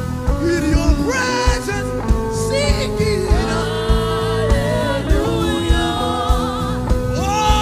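Live gospel worship music: a held keyboard chord and a regular drum beat under a singer's voice gliding through long, sustained notes.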